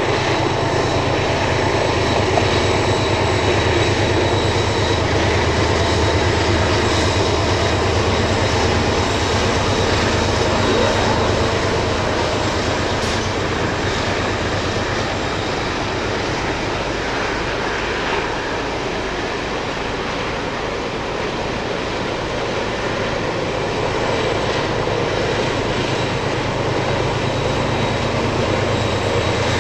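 Diesel locomotive engine droning as a freight train of hopper wagons goes past, fading into the rumble of the rolling wagons, then a second diesel locomotive pushing at the rear of the train draws near again towards the end.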